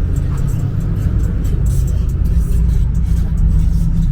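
A car running with a steady low rumble, with music playing over it.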